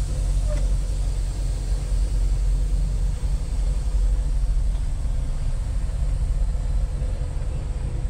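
Semi-truck's diesel engine running at low speed, heard from inside the cab: a steady low rumble with an even hiss over it.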